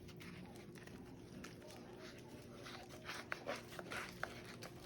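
Faint rustling and scattered light clicks of hands handling zongzi leaves and sticky rice while a leaf cone is being filled and shaped, the clicks coming more often about three seconds in.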